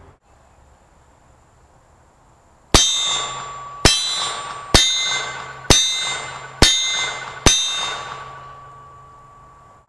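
.357 Magnum double-action revolver fired six times, about one shot a second, each shot followed by the clang of the bullet striking a steel plate target. The steel rings on with a steady tone and dies away slowly after the last hit.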